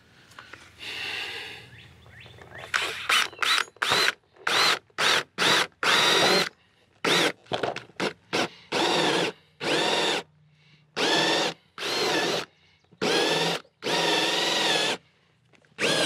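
Power drill spinning a 3/4-inch hole saw through vinyl siding, run in many bursts of the trigger: short and quick at first, then longer pulses with pauses between, each with the motor's whine.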